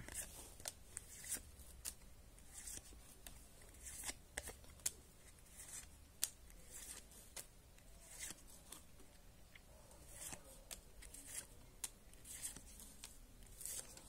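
Paper trading cards being slid one at a time off the front of a hand-held stack and onto the back, making soft, irregular swishes and light clicks every second or so.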